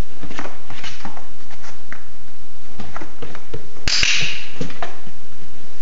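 A puppy's paws padding, tapping and scratching on foam floor mats and a cardboard box as it steps off and back onto the box, in many small uneven knocks. One louder, sharp click with a brief hiss comes about four seconds in.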